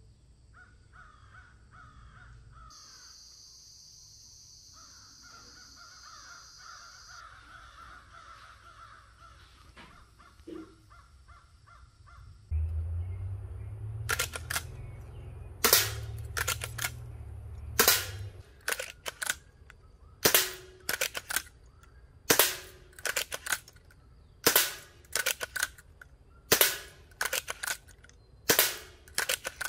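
Birds calling, then an airgun firing shot after shot: sharp cracks every second or two, some coming in quick pairs.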